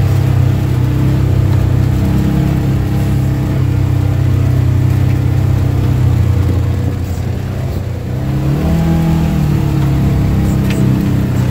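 Polaris General side-by-side's engine running under way on a rough dirt trail, heard from inside the cab. It eases off just before the eight-second mark, then picks up again with a rising pitch; a few sharp knocks near the end.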